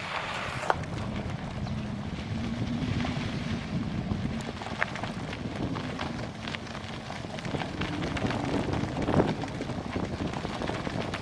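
Wind buffeting the camera microphone during a bicycle ride along rough trails, a steady rumbling rush with scattered small clicks and knocks from the bike over bumps.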